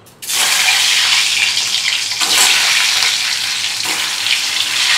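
Boiled eggs hitting hot mustard oil in a steel kadai: a sudden loud sizzle of deep-frying bursts up about a quarter second in and keeps going, flaring again as more eggs go into the oil.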